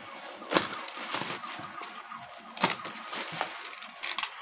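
Black plastic bag crinkling and rustling as hands handle it and pull it open, with a few sharper crackles, about half a second in, midway and near the end.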